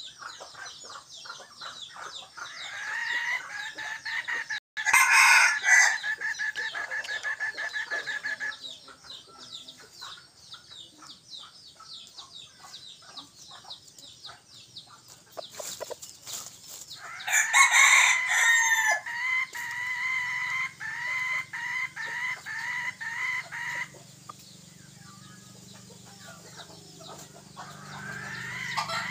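Red junglefowl decoy roosters crowing: a long crow about three seconds in, another about seventeen seconds in, and a third starting near the end.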